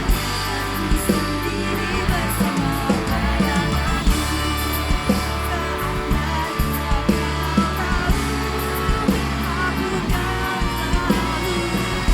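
Band music played live: guitar over bass, with a steady beat.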